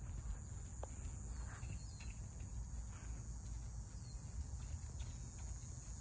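Cicadas buzzing steadily at a high pitch, with a few faint soft hoof thuds from a horse walking on sand.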